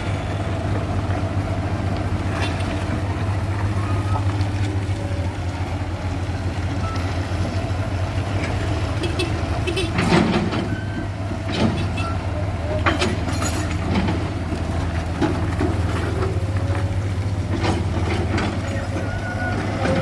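Heavy diesel machinery running steadily at a low, even pitch, with scattered metal clanks and knocks from the work, most of them in the middle stretch.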